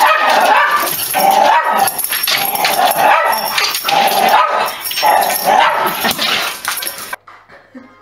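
Small white dogs barking, a quick string of repeated sharp barks that stops abruptly about seven seconds in.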